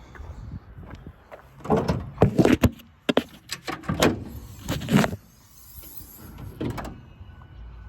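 Doors and latches on a service truck being worked, heard as a run of loud metal clanks and knocks over about five seconds.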